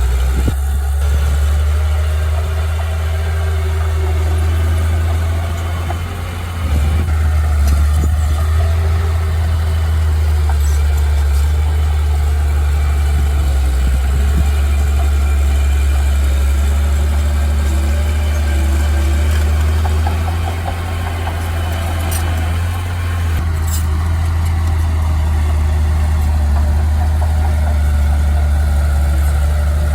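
Heavy machine engine running steadily with a deep, low drone, easing off briefly about six seconds in and again past the twenty-second mark.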